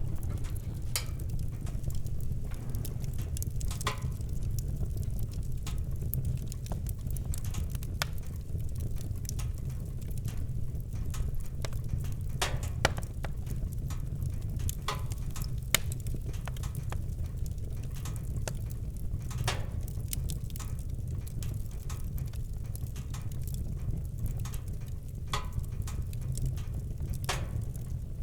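Campfire crackling, with sharp wood pops every few seconds at irregular intervals over a steady low rumble.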